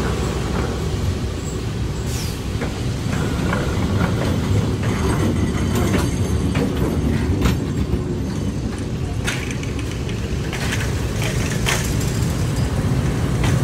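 Diesel-hauled passenger train rolling slowly past at very close range: a steady low rumble with the wheels clicking and knocking over the rails, and a brief high falling squeal about two seconds in.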